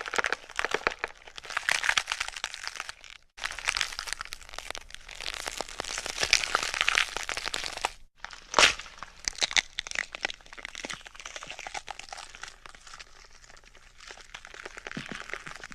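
Dense, irregular crackling and crinkling noise, like something being crumpled. It breaks off abruptly twice, about three and eight seconds in, with a sharp crack just after the second break.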